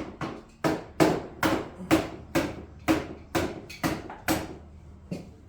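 Hammer blows striking metal in a steady rhythm, about two a second, nine in a row, driving a part out of the ATV, then one softer knock near the end.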